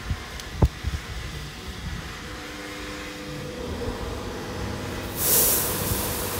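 WashTec Combiwash rollover car-wash gantry running, with a couple of knocks early on and a steady motor whine from about two seconds in. About five seconds in a sudden loud hiss starts and settles into steady rushing noise as the spray comes on.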